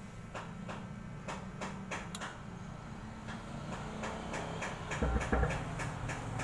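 Irregular clicks and scratchy crackles as a test lead is touched to solder points on an amplifier circuit board to trace the signal of a dead channel, over a steady low hum. A louder low thump comes about five seconds in.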